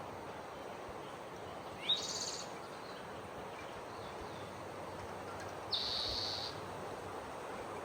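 Forest ambience: a steady outdoor hush with two short, high bird calls, one about two seconds in that sweeps upward into a buzzy note, and another near six seconds that lasts under a second.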